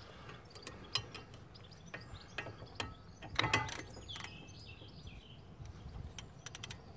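Ratchet wrench with a 15 mm socket clicking in short irregular spurts as it winds in the front brake caliper carrier bolts, with a quick run of clicks near the end.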